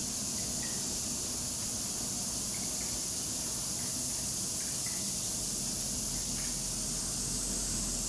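Steady, high-pitched insect chorus, even and unbroken, with a few faint short chirps.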